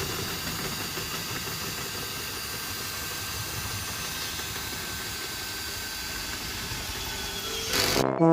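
Small electric motor running steadily as a travel trailer's stabilizer leg is retracted, with a steady whine. It stops shortly before the end.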